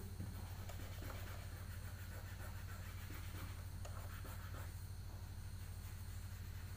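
Faint scraping and light clicks of a plastic set square being slid along a ruler on drawing paper, with a pencil touching the paper, over a steady low hum.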